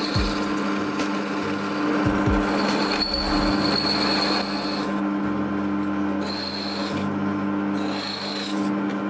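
Bench drill press running with a steady motor hum while its bit drills into a red dish-shaped part, with cutting noise and a high whine that comes and goes several times as the bit bites.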